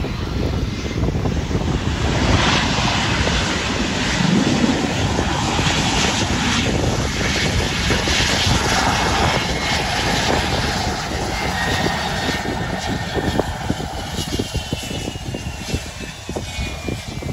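Airliner engines running loud as the aircraft moves along the runway, with a high whine that falls in pitch over the last few seconds. Strong wind buffets the microphone.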